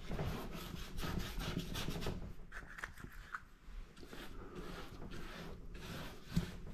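Paintbrush scrubbing acrylic paint onto paper in quick, irregular rubbing strokes, with a single light knock near the end.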